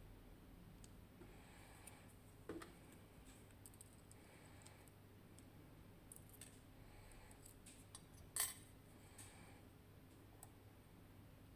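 Faint small metallic clicks and taps as a Tokoz Tech lock cylinder is taken apart, with a sharper click about two and a half seconds in and the loudest click about eight seconds in.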